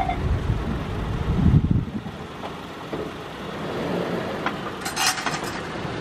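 A level-crossing warning bell gives its last ding right at the start and stops, over a low rumble that swells and then dies away about two seconds in as the crossing falls quiet after the train has passed. A few light clinks follow near the end.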